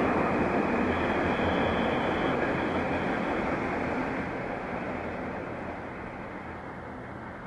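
Freight train of low-floor wagons carrying road lorries and trailers rolling past on the rails, a steady rumble of wheels on track that fades as the train moves away.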